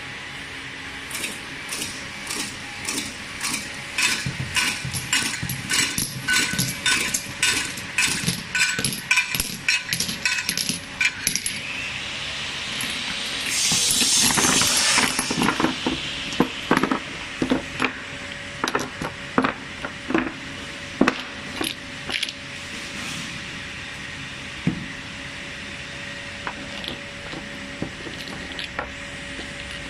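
Glass-bottle double-side labeling machine running, with a steady motor hum and glass bottles clinking as they pass along the conveyor. The clinks come in an even train of about two or three a second at first, then turn irregular. A loud burst of hiss comes about halfway through.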